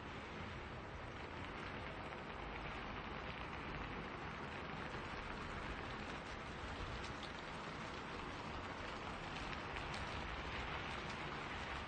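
Steady rain falling in a spruce forest, an even hiss of drops with faint individual drips, with wind in the trees.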